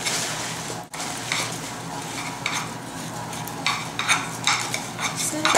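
Metal spoon stirring crisp rice cereal into melted marshmallow in a saucepan. The cereal crackles, and a run of scraping strokes comes every few tenths of a second.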